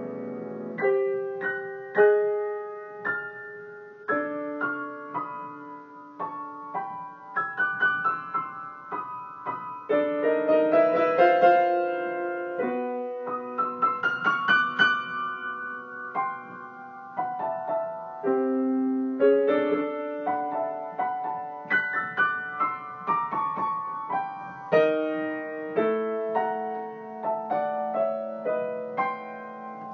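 Solo piano improvising a series of struck chords, each ringing and dying away, with busier runs in places. The harmony is built from open fifths in the bass against stacked thirds and fourths above.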